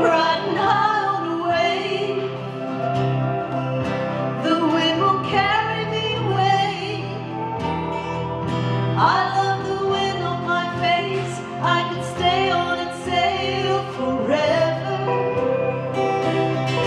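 A woman singing a slow song to acoustic guitar accompaniment.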